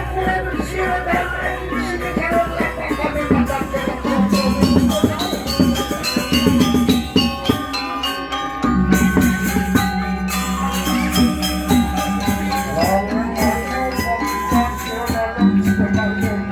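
Balinese gamelan playing: bronze metallophones struck in fast, dense patterns of ringing notes over deep, sustained gong tones that change every few seconds.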